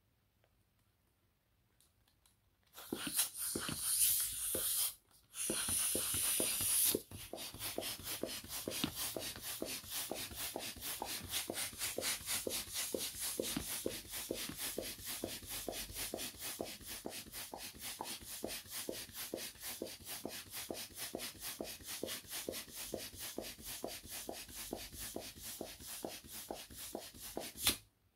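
Handheld plastic balloon pump inflating a latex balloon: a long, even run of rapid pumping strokes, each a short puff of air, that stops suddenly near the end. It is preceded by a few seconds of louder rustling noise with a brief break.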